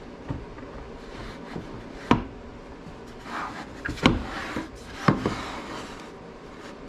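Wooden gauge piece and clamp parts being handled and set in place on a machine: three sharp knocks about two, four and five seconds in, with rubbing and scraping between them.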